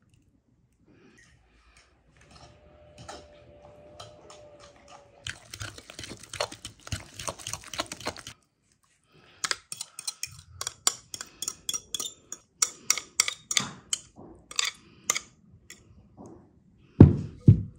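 Metal fork beating eggs into a cottage cheese filling in a glass bowl: a fast run of clinks and scrapes against the glass, then after a short pause a rhythmic tapping of fork on bowl at about four taps a second. Near the end a single heavy thud.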